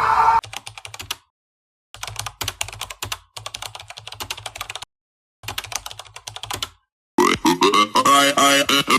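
A held tone cuts off just after the start. Runs of quick clicks follow, broken by several stretches of dead silence, and music starts about seven seconds in.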